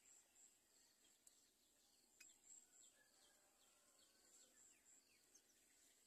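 Very faint outdoor ambience: a steady series of short, high-pitched insect-like pulses, with several faint short falling bird chirps and a faint click about two seconds in.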